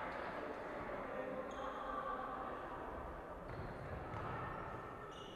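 Echoing sports-hall sound of an indoor futsal game in play: distant ball contacts and footsteps on the wooden floor, with three short, faint, high squeaks.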